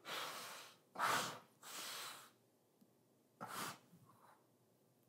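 A man's heavy, distressed breaths through hands cupped over his nose and mouth: four noisy breaths in the first four seconds, with a longer gap before the last.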